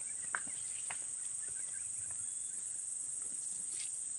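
Steady high-pitched chorus of insects, with a few short clicks and rustles from the net being handled; one sharp click comes about a third of a second in.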